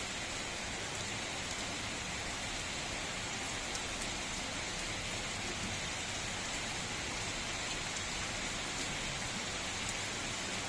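Heavy rain falling steadily, an even hiss with a few sharper drop ticks now and then.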